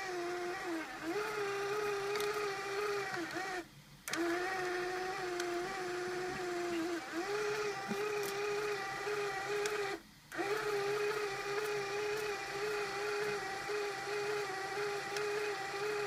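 Small electric motor of an Arduino-driven camera conversion, running with a steady whine that wavers slightly in pitch. It cuts out briefly twice, about four seconds in and about ten seconds in, and stops near the end.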